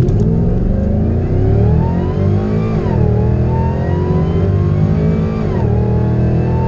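Whipple-supercharged 6.2-litre V8 of a 2012 GMC Sierra at full throttle, accelerating hard from a standstill, heard from the cab. The engine pitch climbs steadily and drops sharply at two upshifts, about three seconds in and again shortly before the end.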